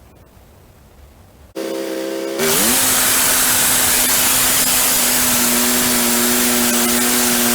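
Wood-Mizer LX150 bandsaw mill starting up abruptly about a second and a half in. Its note rises briefly as the band blade gets going, then it runs steadily with a loud hiss over a steady hum.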